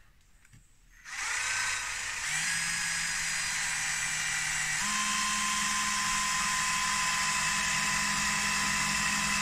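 Cordless drill-driver running on its low-speed setting, driving a screw into the wooden frame. It starts about a second in with a short rising whine, then runs steadily, and its pitch steps up twice as the motor speeds up.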